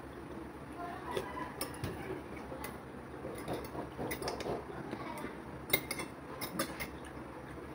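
Metal spoon and fork clinking and scraping against a ceramic plate and soup bowl while eating: a scatter of light, irregular clicks over a steady low background hum.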